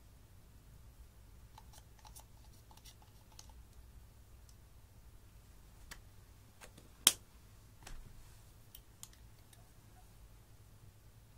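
Light clicks and taps of plastic makeup packaging being handled over glass dishes: a scatter of faint ticks in the first few seconds, one sharp louder click about seven seconds in, and a few fainter clicks after it.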